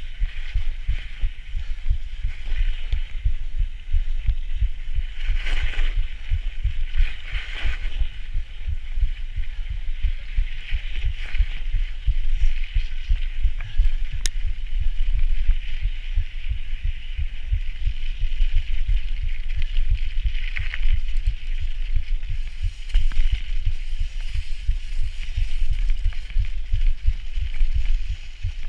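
Bicycle ridden over packed snow, heard through a bike-mounted camera: a constant low, jumbled thumping of wind and ride vibration on the microphone under a steady hiss, with a few brief louder bumps and one sharp tick.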